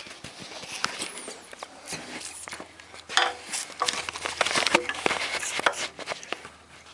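Metal vise parts being handled and fitted together: an irregular run of clinks, knocks and light scrapes, busiest and loudest about three to six seconds in, with a short metallic ring a couple of times.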